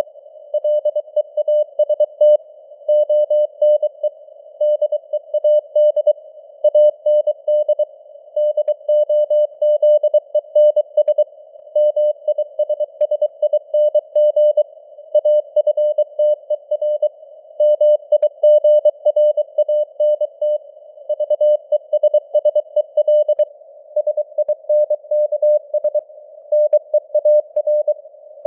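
Morse code at 23 words per minute: a single beep tone keyed on and off in dots and dashes, sent as a CW radio signal over a narrow hiss of simulated radio noise. The signal strength varies gently (QSB fading).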